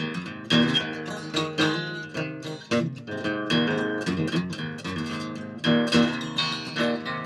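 Background music: plucked guitar playing a steady run of notes.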